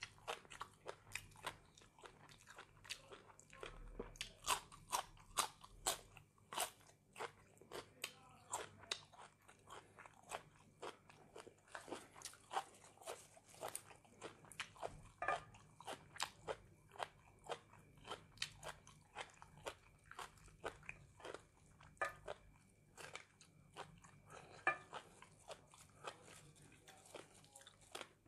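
Chewing and crunching of fresh raw vegetables, with sharp crisp crunches about twice a second.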